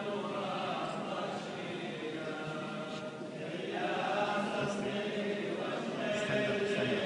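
A crowd of voices chanting together, with long held notes that shift in pitch.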